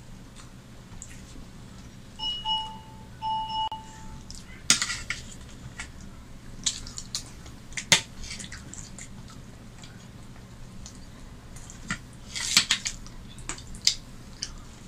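A metal spoon clinking and scraping against a metal bowl, a scatter of sharp clicks that is loudest about five and eight seconds in and again near the end. Two short steady tones sound about two seconds in.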